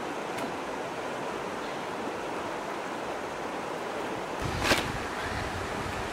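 Steady rushing outdoor background noise, like running water or wind, with one sharp knock a little over four seconds in.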